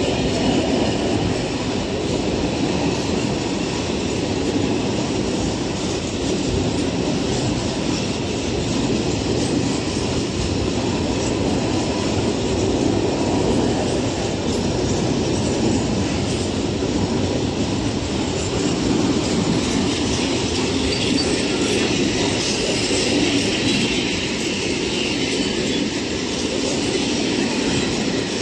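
A freight train's high-sided open wagons rolling past close by: a steady rumble and rattle of steel wheels on the rails that holds at the same level throughout.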